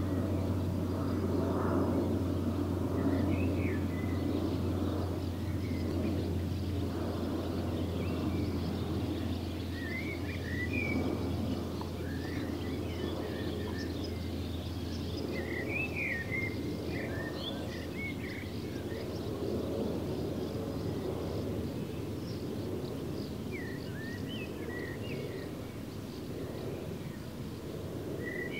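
Outdoor ambience: scattered short bird chirps over a steady low rumble, with a low hum that fades about three quarters of the way in.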